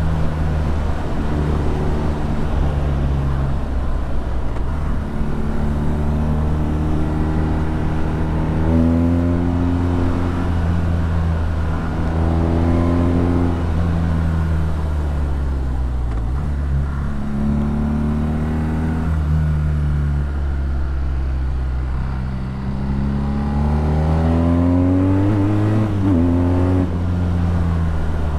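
BMW R nineT's 1170 cc air/oil-cooled boxer twin running through an Akrapovic exhaust under load, its pitch rising as it pulls up through the revs and dropping back between pulls, about four times over.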